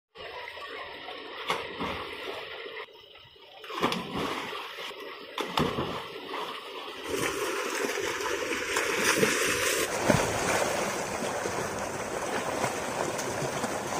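Water gushing from a tube well's outlet pipe into a brick bathing tank, with people splashing in it and several sudden splashes. From about halfway on, a steadier, fuller rush of water.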